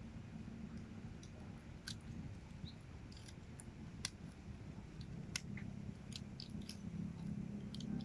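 Sharp plastic clicks at irregular intervals as the layers of a small Rubik's cube are twisted by hand, over a low steady hum.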